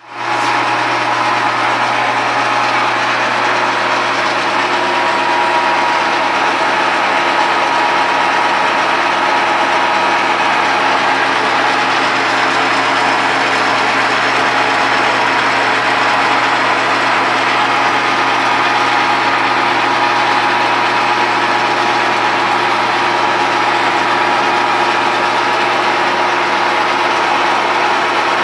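Jet geared-head bench lathe running steadily: an even machine hum with several steady tones, holding one level throughout.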